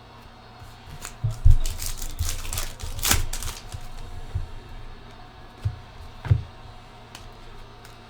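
Trading-card packs being opened and cards handled: a run of crinkling and clicking, loudest in the first half, then two sharper knocks a little over half a second apart.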